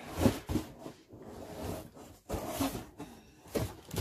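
Items being handled by hand at a cardboard box: a series of irregular knocks and bumps with rustling between them, the loudest just after the start.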